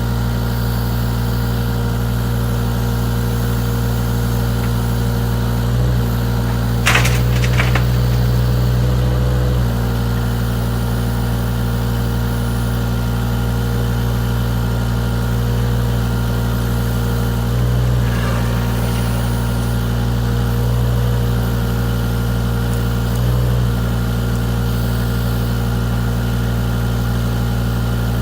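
Avant 423 compact loader's diesel engine running steadily while the 210 backhoe is worked, its note changing briefly several times. A short sharp clatter about seven seconds in.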